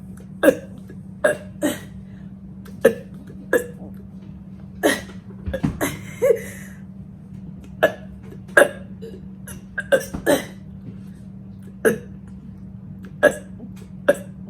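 A woman forcing out short burps one after another, roughly one a second, as fast as she can for a burp-count challenge, over a steady low hum.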